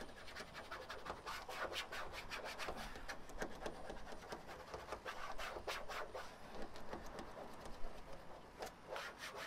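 A small hand tool rubbing and scraping back and forth over an alarm's fixing plate on a van's rear door, pressing its 3M adhesive pad down firmly to bond. Many quick, scratchy strokes follow one another irregularly.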